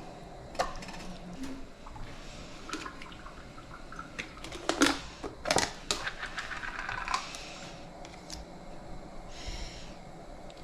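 Kitchen work noises: a few sharp knocks and clatters, two loud ones close together about halfway through, with quiet handling noise between.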